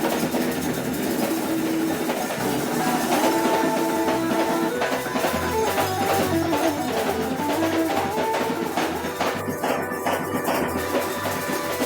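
Live instrumental music: a guitar playing a wandering melodic line over hand percussion.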